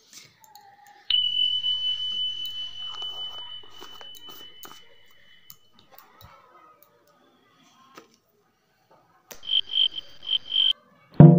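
A high electronic tone starts suddenly about a second in and fades slowly away over about five seconds; later a high beep pulses about five times in quick succession. Keyboard music starts right at the end.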